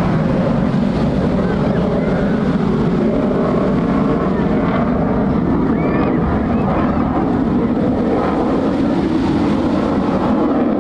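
Steady, continuous jet roar from an F-35C Lightning II's single F135 afterburning turbofan as the fighter flies its display maneuvers overhead. Faint voices are mixed in.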